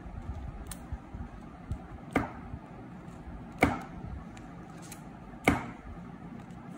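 Scissors snipping through clear adhesive tape around a paper cut-out: four crisp snips about a second and a half apart, the last two loudest, with fainter blade ticks between.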